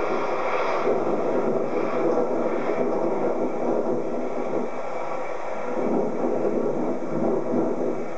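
Airbus A340-300's four CFM56 jet engines running as the airliner taxis away, heard as a steady rushing noise that swells and eases slightly.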